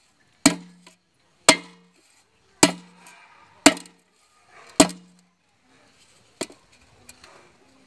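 A long iron tool jabbed down onto an aluminium patch sheet in the bottom of an aluminium cooking pot (dekchi), fixing the patch over a leak in the pot's bottom. Five sharp metallic blows about a second apart, each leaving the pot ringing briefly, then a lighter knock and a few small taps near the end.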